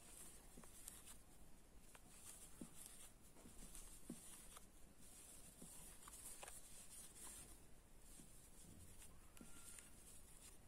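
Near silence, with faint short scratchy rustles of yarn as a metal crochet hook works through the stitches, and a few small soft ticks.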